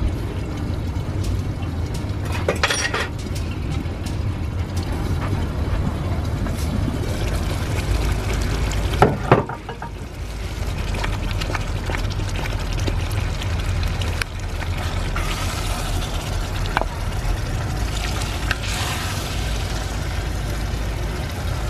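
Stew cooking in a cast-iron pot over a wood fire, under a steady low rumble, with a sharp clank about nine seconds in and a few sharp spoon-on-pot sounds near the end as the stew is served out.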